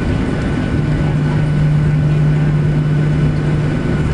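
Steady cabin noise inside a Boeing 737 taxiing after landing: the jet engines running at low thrust with a constant low hum under a wash of noise.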